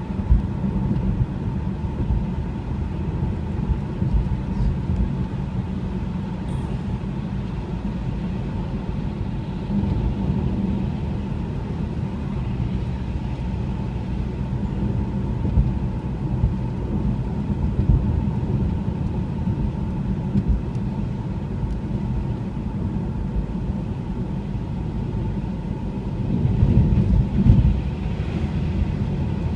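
Road noise heard inside a moving Mazda 3's cabin: a steady low rumble of engine and tyres on a wet, slushy road. It swells louder for a few seconds near the end.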